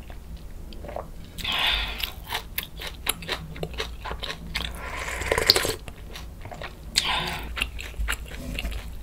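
Close-miked eating: three slurping sips of hot beef-bone broth from a ladle, each lasting under a second, with chewing and small wet mouth clicks in between.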